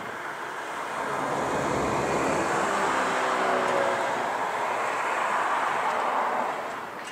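A vehicle passing close by, growing louder over the first couple of seconds, holding, then fading away near the end.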